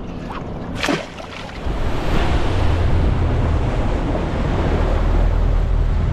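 Wind buffeting the microphone over open water around a small boat, growing to a steady loud low rumble with hiss about a second and a half in, after a short sharp sound near one second.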